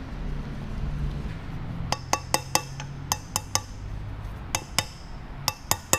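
Light ringing metallic taps of a ball peen hammer seating a greased bearing into the end plate of a Battioni rotary vane vacuum pump. About a dozen taps come in small groups starting about two seconds in, worked around the bearing so it goes in square.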